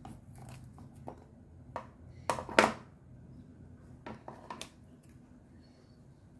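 Dried red dates being cut open to remove the seeds with a knife and kitchen scissors on a plastic cutting board. Short irregular snips and clicks come, with the loudest cluster of clicks a little past the middle and a few more snips about a second later.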